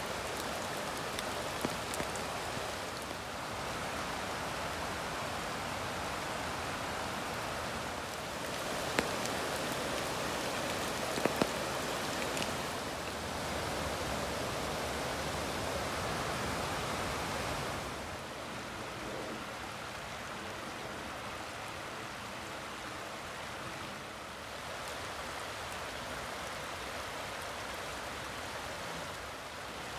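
Forest creek running full over rocks: a steady rush of water that steps up or down in level every few seconds, with a few sharp ticks near the middle.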